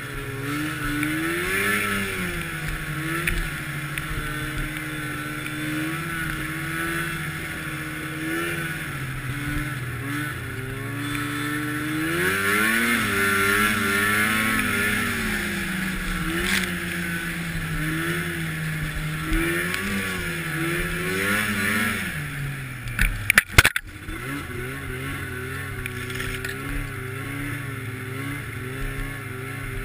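Arctic Cat snowmobile engine running under way, its pitch rising and falling repeatedly with the throttle, over a steady hiss. A few sharp knocks come about three-quarters of the way through.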